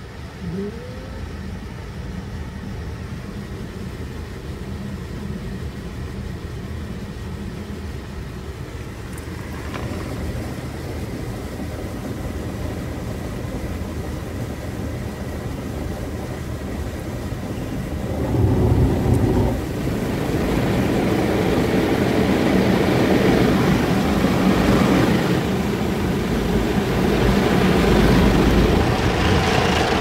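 Automatic car wash heard from inside the car: water jets spraying over the windshield and body, with a steady hum underneath. A little past halfway it swells with a heavy rumble and stays louder and hissier after that.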